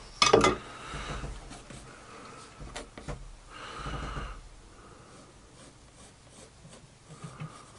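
A sharp wooden knock about a third of a second in, then a pencil scratching and rubbing as it marks lines on a plywood block, with close breathing.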